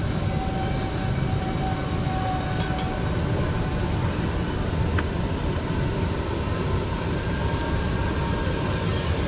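Steady low rumble and hiss of spiral potato skewers deep-frying in a tray of oil over a gas burner, with a few light clicks of metal tongs.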